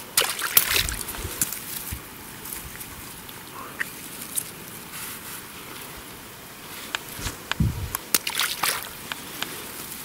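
Water sloshing and splashing in two spells of quick splashes and drips, at the start and again from about seven to nine seconds in, as a keepnet holding crucian carp is moved about in the water.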